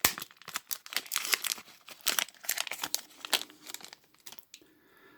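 Small package wrapping being crinkled and torn open by hand: an irregular run of sharp crackles that dies away about four and a half seconds in.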